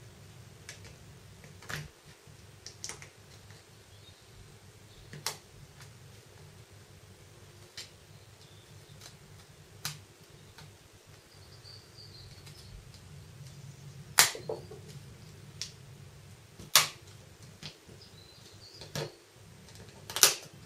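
Sharp, irregularly spaced plastic clicks as a small flathead screwdriver pries the Samsung Galaxy S1's plastic bezel up and its retaining clips snap free, the loudest few in the second half.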